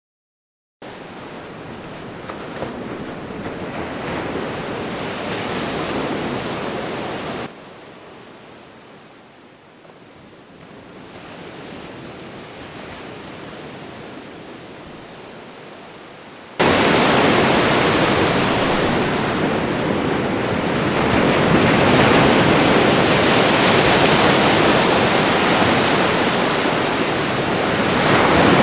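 Steady rushing noise of fast-flowing floodwater, in three spliced takes: it cuts in about a second in, drops abruptly to a quieter take midway, then jumps to a louder, fuller rush for the second half.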